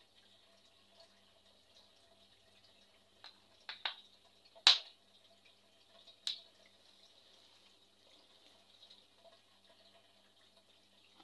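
Five short sharp taps close together in the middle, the fourth by far the loudest, over a faint steady hiss.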